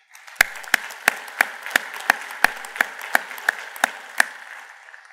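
Audience applauding, with one person's claps standing out loud and sharp at a steady beat of about three a second, then the applause dies away near the end.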